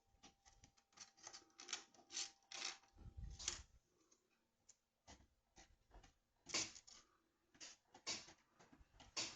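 Faint, scattered clicks and light scraping of hands handling small electronic parts, with a soft thud about three seconds in.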